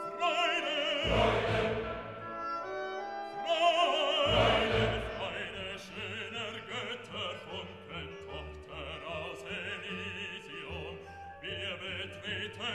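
Orchestral music with a wavering, operatic singing voice, played for a balloon light show. There are two heavy, deep booms, about a second in and again about four seconds in.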